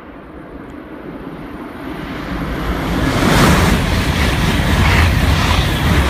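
TGV high-speed train passing at speed: a rushing roar that builds steadily as it approaches, peaks about three seconds in, and stays loud as the coaches go by.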